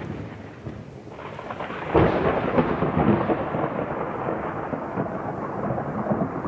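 Thunder with rain: a rolling rumble that dies down, then a sudden loud clap about two seconds in, followed by sustained rumbling over a rain hiss that cuts off suddenly at the end.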